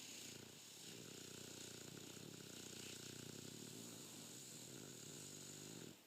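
A sleeping pet snoring: one long, low fluttering snore with a breathy hiss, lasting about six seconds and stopping just before the end.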